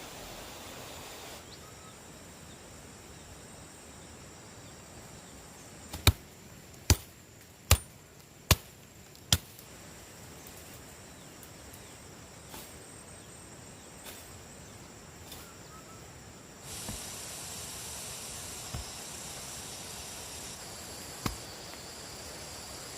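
Five sharp, evenly spaced knocks of a hand tool striking, a little under a second apart, then a single fainter knock near the end, over a steady outdoor background hiss.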